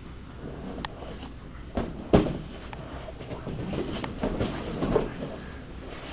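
Grappling on a mat: gi fabric rustling and bodies shifting, with scattered thumps and knocks, the loudest about two seconds in.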